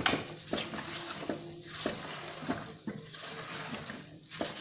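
Red silicone spatula stirring whole small onions through spice masala in a nonstick wok: a soft scrape or knock against the pan about every half second to a second.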